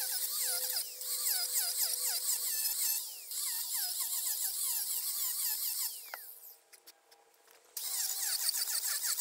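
Makita angle grinder with a King Arthur Lancelot chainsaw-tooth carving disc cutting into a cedar blank, its whine dipping in pitch again and again as the disc bites into the wood. About six seconds in the grinder is let off and spins down, and it starts cutting again near the end.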